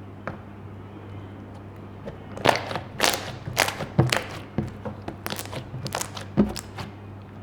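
Slime being squeezed and pressed by hand, giving an irregular run of sharp wet pops and clicks from about two seconds in, over a steady low hum.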